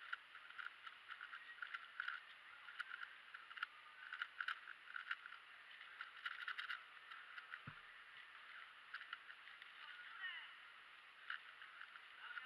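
Faint plastic clicking and rattling of a MoFangGe QiYi WuQue stickerless 4x4 speedcube being turned fast, in irregular quick runs of clicks. A single low thump comes about two-thirds of the way through.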